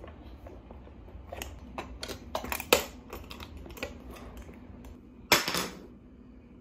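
A toddler handling Lovevery wooden toys on a plastic high-chair tray: a string of sharp clicks and knocks from a wooden lock box with metal latches and a wooden shape-stacking puzzle. A louder, longer clatter comes about five seconds in.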